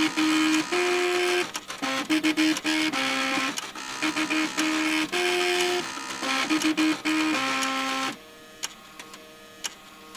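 Floppy disk drives and stepper motors buzzing out a melody, their head-stepping motors sounding pitched notes that change every fraction of a second. The tune stops about eight seconds in, leaving a few faint clicks.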